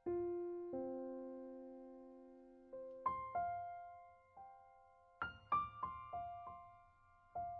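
Slow, soft background piano music: single notes and chords struck and left to fade, with a quicker run of notes about five seconds in.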